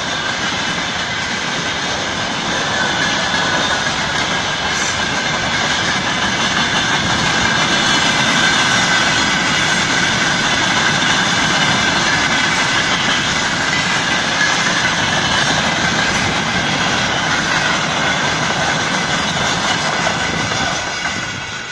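Freight train's wagons rolling past close by: a steady rumble and clatter of wheels on rail, with a steady high-pitched squeal above it. The sound fades near the end as the last wagons go by.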